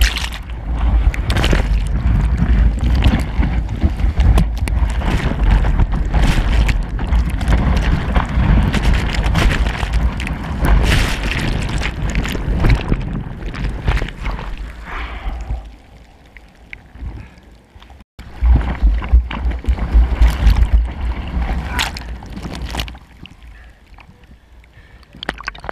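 Surf water churning and rushing over a GoPro held at the water line in broken waves: loud, rough noise with a heavy low rumble that eases off a little past halfway, breaks off sharply for a moment, then comes back loud for a few seconds before settling quieter near the end.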